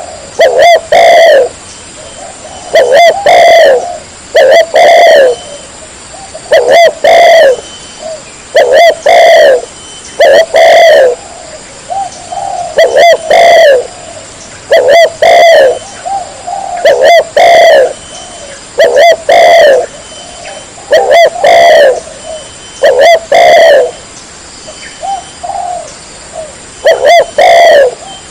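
Spotted dove cooing over and over, each phrase a softer lead note followed by two loud coos, repeated about every two seconds. It is very loud and close, with the peaks clipping.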